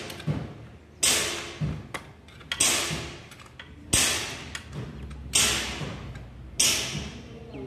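Ratchet wrench being worked back and forth on a bolt at an engine's mounting bracket: a sharp burst of metal clicking with each stroke of the handle, about once every second and a half, five times.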